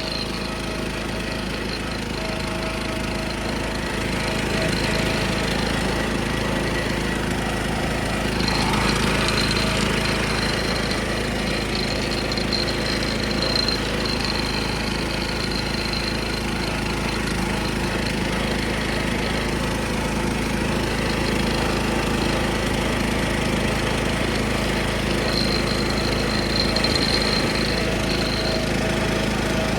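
A 1976 John Deere 300 riding lawnmower's engine running steadily while the tractor is driven, with a thin high whine that comes and goes.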